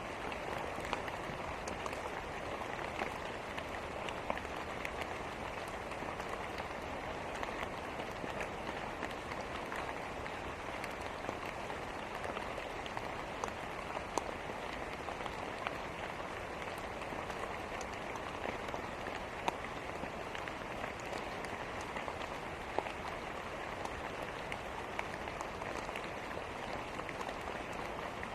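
Steady rain mixed with a crackling wood fire: an even hiss of rain with scattered sharp pops and clicks.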